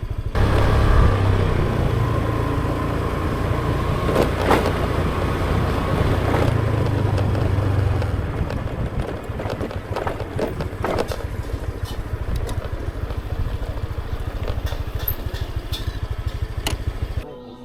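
Motorbike engine running while riding along, with a heavy low rumble under it and scattered clicks and knocks. The sound cuts off suddenly near the end.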